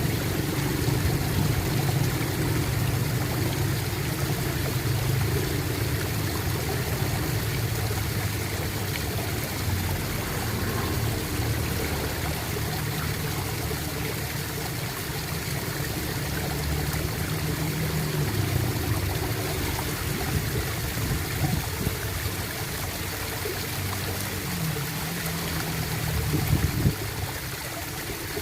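Running water gurgling and trickling steadily, with a low rumble underneath and a few louder gurgles near the end.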